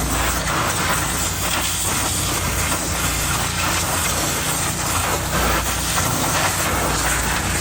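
High-pressure washer spray blasting water in a steady hiss, over the steady low hum of an engine.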